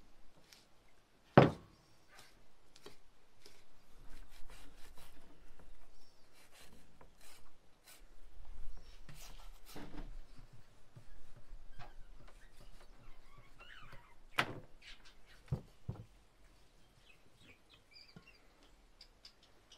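Knives cutting and scraping raw meat from bones on wooden cutting boards: scattered scrapes and clicks, with a few sharp knocks on the boards.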